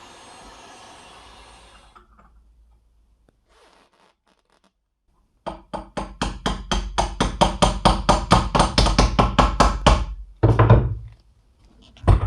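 Rapid, even knocking, about four or five blows a second for some four seconds, like a part being hammered in a workshop. Two heavier, deeper thunks follow near the end. Before that, a steady running noise stops about two seconds in.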